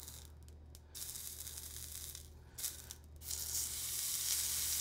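Foie gras sizzling as it sears in a dry, very hot pan, with no oil added and the liver's own fat rendering out. The sizzle drops out briefly twice, then grows louder about three seconds in.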